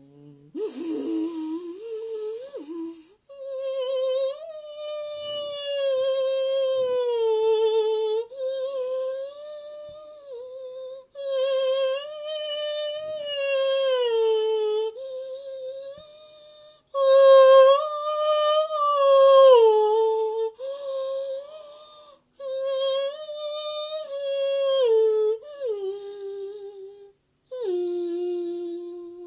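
Sound-healing vocal toning by a woman's voice: long wordless notes, each held for a few seconds on a mostly steady pitch that slides down at the end of the phrase, with short breaths between phrases.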